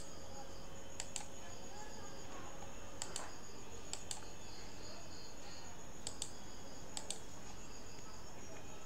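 Computer mouse button clicks, each a quick press-and-release pair, about five times at uneven intervals, over a steady faint high-pitched electrical hiss.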